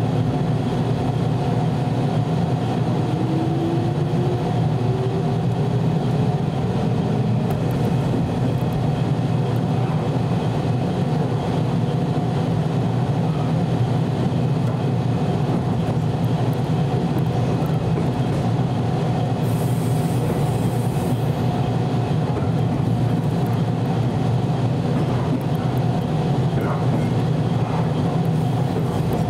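A 413 series electric multiple unit running along the line, heard from behind the driver's cab: a steady, loud rumble of wheels and running gear. A faint tone rises in pitch a few seconds in, and a short hiss comes about twenty seconds in.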